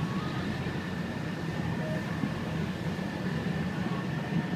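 Sightseeing boat's engine running steadily: an even low drone with a thin high whine held through it.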